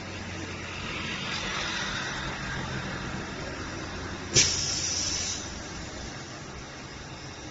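Edge-bending machine for round road signs at work: a steady motor hum with a rising mechanical noise, then a sharp click about four and a half seconds in followed by a short hiss.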